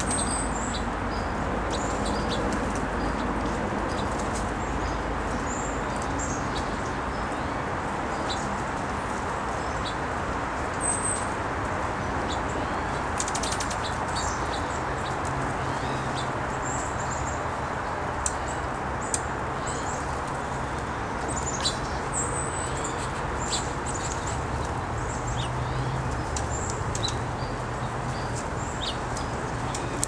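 Small songbirds giving short, high chirps and ticks scattered throughout, over a steady outdoor hiss, with a few brief sharp clicks in the second half.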